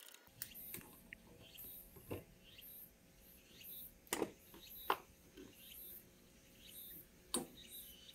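Faint handling sounds of a hand tap and a metal pipe on a gear case: a few sharp clicks and light knocks, the loudest about five seconds in. Faint high-pitched chirps recur in the background.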